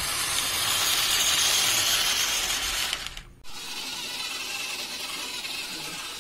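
Steady hissing background noise, a little louder in the first half, with a brief drop about three seconds in.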